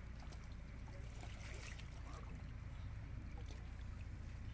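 Shallow muddy water sloshing and splashing faintly as hands grope through it for fish, over a steady low rumble.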